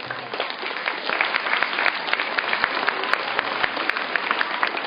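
Audience of schoolchildren clapping steadily, many hands at once, for a team coming up to receive certificates.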